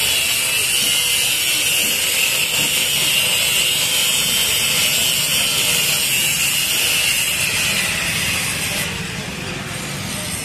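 Angle grinder running steadily while it grinds into a motorcycle's steel main stand bracket, a high whine over a grinding hiss. It stops about nine seconds in, and a quieter background is left.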